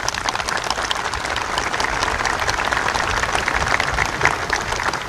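Crowd applauding: a dense, steady clapping.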